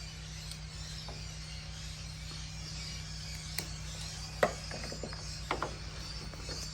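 A Torx screwdriver undoing the T20 screws on the plastic rear cover of an Audi Q7 headlight: scattered sharp clicks and light ticking, the loudest about four and a half seconds in, over a steady low hum.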